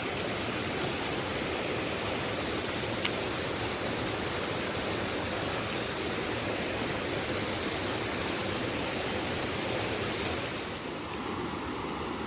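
Mountain stream water rushing over rocks, a steady wash of noise, with a single sharp click about three seconds in.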